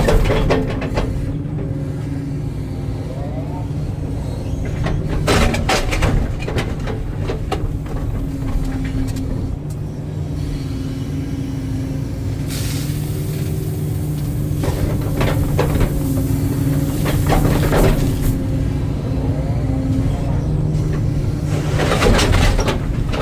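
Hitachi excavator's diesel engine running steadily under work, with several bursts of rattling and knocking as the machine handles backfill material. A couple of faint short rising whines are also heard.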